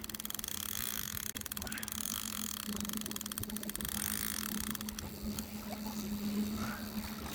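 Boat engine running steadily at trolling speed, a low even hum, with a fishing reel's rapid clicking as fish pull line in the first second or so and again about five seconds in.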